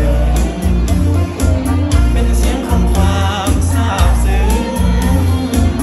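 A man singing live into a microphone over an amplified backing track with a pulsing bass beat.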